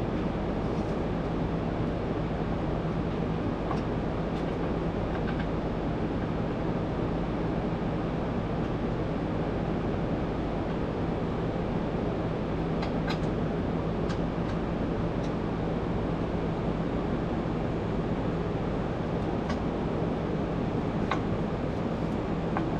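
Steady workshop background hum and rushing noise, with a few faint light clicks of tools or parts now and then.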